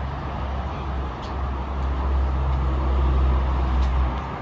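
Low rumble of a road vehicle's engine going past, building to its loudest about three seconds in and dropping away near the end.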